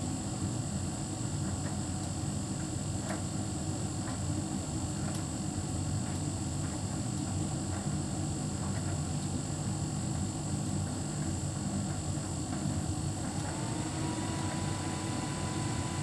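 Hotpoint heat pump tumble dryer running steadily with a low hum and a few faint ticks. About thirteen seconds in, a whine rises and settles at a steady pitch.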